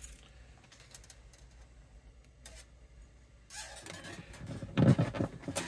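Workbench handling noises: a few faint light clicks, then rustling that builds and a dull thump about five seconds in.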